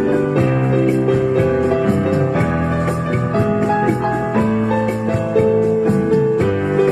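Background music: a melody played on piano with held chords, running steadily.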